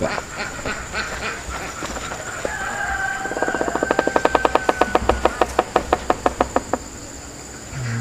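Woodpecker drumming on a tree: a rapid, even run of knocks, about ten a second, lasting some three seconds from a little before the middle. A high steady whistle sets in just before the knocks start.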